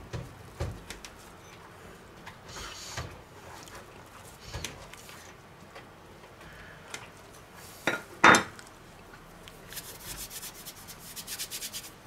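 Kitchen knife slicing pieces off a chilled roll of butter cookie dough on a silicone baking mat, the blade tapping and scraping on the mat and plastic wrap, with one louder knock about eight seconds in and a quick run of small clicks near the end.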